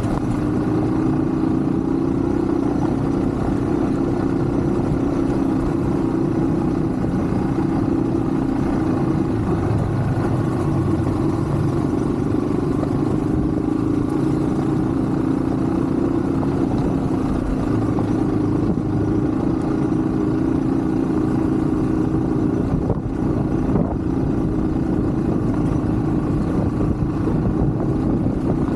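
Yamaha WR155 enduro motorcycle's single-cylinder engine running at a steady pitch under way, with a brief dip about three quarters of the way through.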